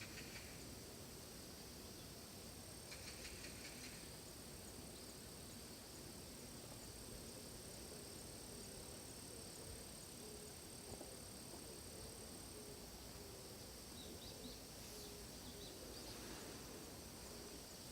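Faint, steady high-pitched chorus of insects, with a few brief fainter calls over it.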